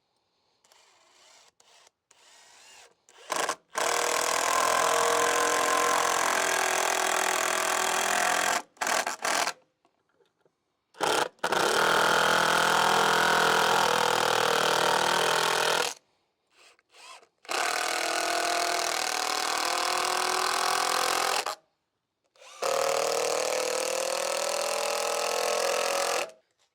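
Electric drill boring into hard oak in four long runs of several seconds each, with short blips of the trigger between them.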